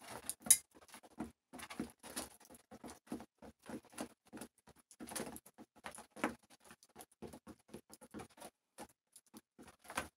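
Domestic pigeons pecking grain off a wooden board: a quick, irregular patter of beak taps on the wood, with a few louder knocks, the sharpest about half a second in.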